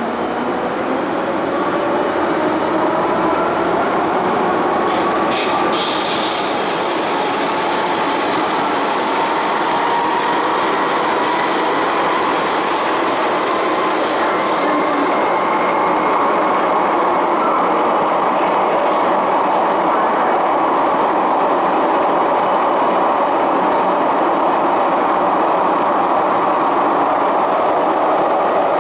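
MTR M-Train (Metro Cammell electric multiple unit) accelerating in a tunnel, its traction motors whining up in pitch over the first ten seconds or so, then running at speed with steady wheel and rail noise. A high hiss sits over it from about six to fifteen seconds in.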